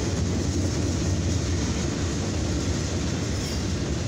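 Boxcars of a CSX mixed freight train rolling past, a steady rumble of steel wheels on the rails. A brief faint high-pitched squeal comes in near the end.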